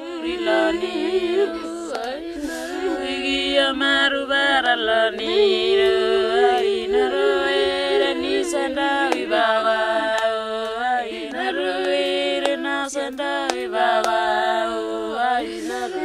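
Several women singing a lament together, unaccompanied, in a Papuan language. The melody is drawn out and wavering over a low note held steadily beneath it.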